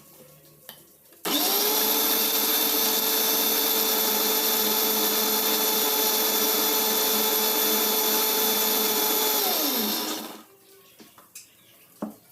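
Sansui Pro mixer grinder's motor starts abruptly, runs with a steady whine for about eight seconds, then is switched off and winds down with a falling pitch.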